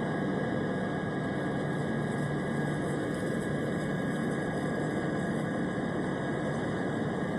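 Airplane engine noise: a steady, even drone with a faint high whine held on one pitch, without any change.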